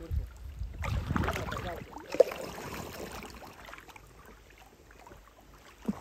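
Kayak paddle strokes dipping and splashing in calm river water, with a sharp knock about two seconds in. The strokes fade quieter in the last couple of seconds.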